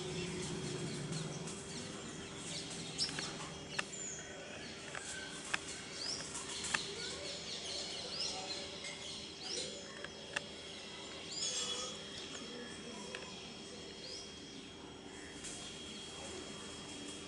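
Birds chirping outdoors in short high notes and quick rising whistles, with a few sharp clicks, over a steady low hum and background noise.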